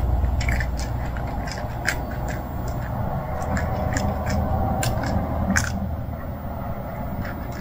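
Stray cats eating from a plastic tray: wet chewing and smacking, with irregular sharp clicks as teeth and the tray knock together. A steady low rumble runs underneath.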